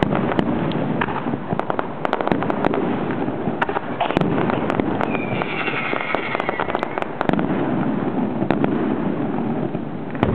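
Aerial fireworks shells bursting overhead: a dense, continuous run of bangs and crackles. A falling whistle sounds through the middle.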